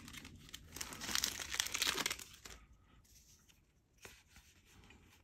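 Foil wrapper of a Yu-Gi-Oh Mega-Tin mega pack crinkling and tearing as it is ripped open, for the first two and a half seconds. Then quieter handling, with a single click about four seconds in.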